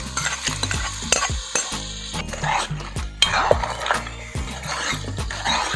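Crab pieces slid from a pot into a kadai of masala and stirred with a metal ladle: repeated scrapes and knocks of the ladle against the pan, with the masala sizzling.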